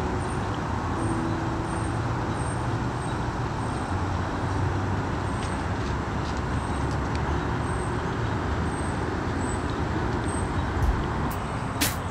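Steady low rumble of distant road traffic, with faint high-pitched chirps repeating about once or twice a second and a sharp click near the end.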